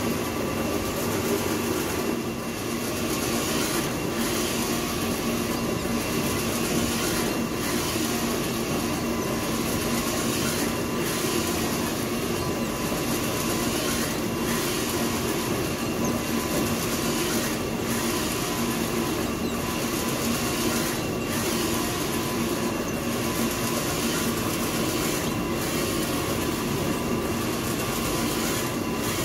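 Sublimation printing machinery running steadily, a continuous mechanical hum with a few fixed tones, broken by a brief regular dip about every 1.7 seconds.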